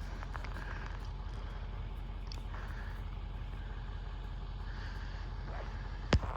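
Steady low rumble and road noise inside a moving car, with one sharp click near the end.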